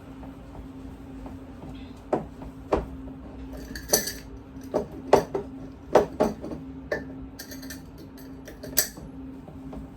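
Dishes and kitchen utensils clinking and knocking as they are handled, about eight irregular strikes, some with a short ringing, over a steady low hum.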